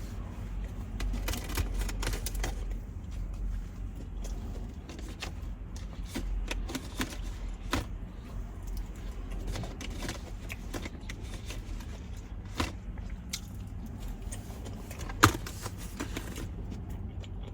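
Scattered small clicks, scrapes and rustles of handling close to the microphone, with one sharper click about 15 seconds in, over a steady low rumble.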